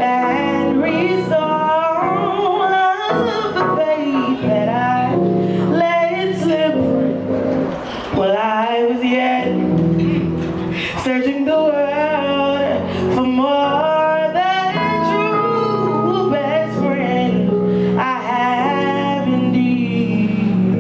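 Live song: a solo singer's vocal runs, sliding up and down in pitch, over sustained instrumental chords.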